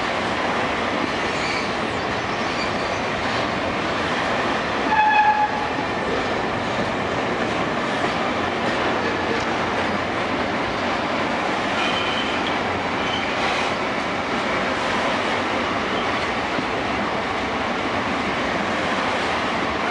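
Empty freight hopper wagons rolling past at close range: a steady noise of wheels running on the rails. A brief squeal about five seconds in is the loudest moment, with fainter short squeals later.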